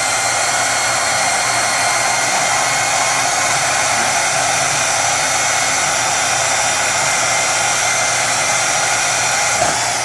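Electric power cutting tool cutting through the steel frame of a stripped 110cc quad: a loud, steady high whine with grinding noise that cuts off near the end.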